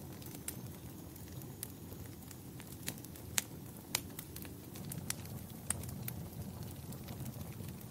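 Fireplace fire crackling: a steady low rumble of flames with irregular sharp pops, about seven of them, the loudest a little over three seconds in.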